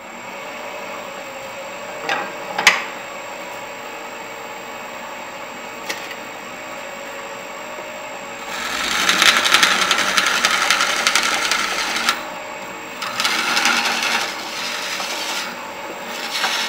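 Wood lathe running with a steady hum while a hand-held half-inch twist drill bit is fed into a spinning end-grain blank. A couple of knocks come about two seconds in. The bit cutting wood makes a loud rasping hiss in three stretches: a long one from about halfway, then two shorter ones near the end.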